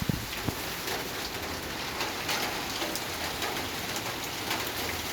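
Steady rain falling, an even hiss dotted with the ticks of individual drops, with a few low thuds in the first half-second.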